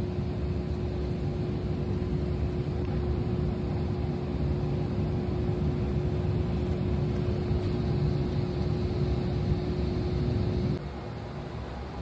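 Gas burner of a heater firing, a blue flame seen through its sight glass: a steady rumble with a constant hum, running normally again now that the iced-up intake and exhaust pipes have been cleared. It cuts off suddenly about eleven seconds in.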